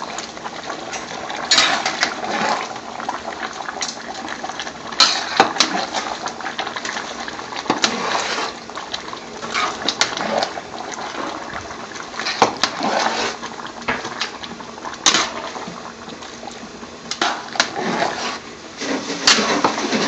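A metal ladle stirring a large stockpot of simmering onion and tomato gravy: wet sloshing and squelching, with the ladle knocking and scraping against the pot's side every second or two.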